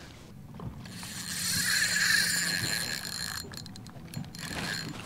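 A fishing reel being cranked, a steady whir, followed a little past halfway by a run of quick clicks.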